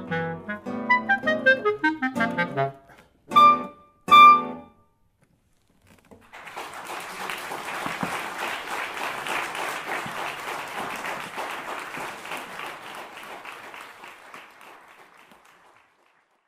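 Clarinet and guitar playing the closing bars of the suite's finale, ending on two short, loud chords. After a pause of about a second and a half, audience applause begins and fades away near the end.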